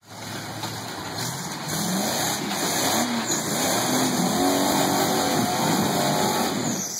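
Engine of a flat-fender Jeep rock crawler revving up and down under load as it climbs a rock ledge, getting louder about two seconds in.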